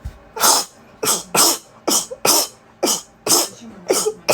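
A woman in a sneezing fit: about eight short, sharp sneezes in quick succession, roughly two a second.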